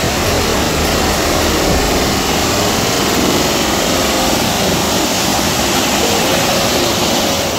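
Mountain stream rushing over boulders in white-water rapids: a loud, steady rush of water.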